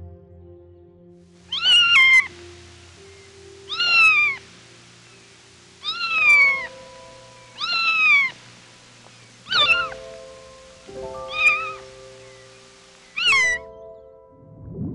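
Kitten meowing seven times, each high call rising then falling in pitch, about one every one and a half to two seconds, over soft background music.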